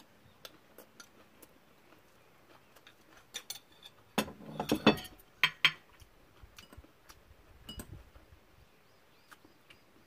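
Metal chopsticks clinking and tapping against bowls and dishes while eating: scattered light clicks, with a cluster of louder clatter about four to six seconds in.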